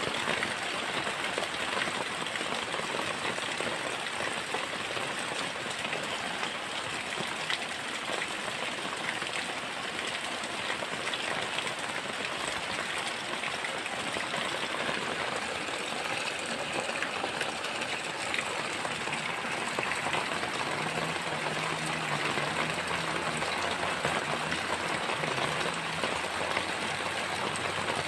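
Heavy rain falling steadily, a dense even hiss full of fine drop ticks. From about twenty seconds in, a faint low wavering hum sits beneath it.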